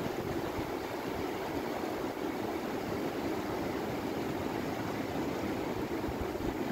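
Steady rushing of the Ganga's glacial meltwater torrent pouring out from the glacier snout.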